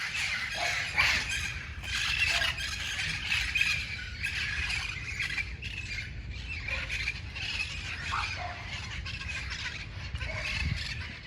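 A flock of red-crowned parrots squawking, many harsh, overlapping calls without pause.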